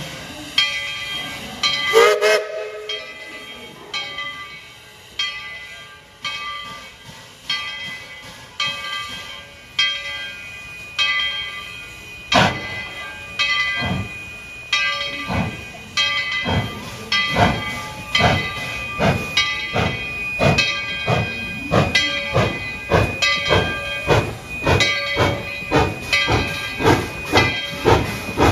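Steam locomotive ETWNC #12, a Baldwin 4-6-0, pulling away from a stand. Its exhaust chuffs start about one a second and speed up to about two a second as it gathers speed. A brief toot of its chime whistle sounds about two seconds in.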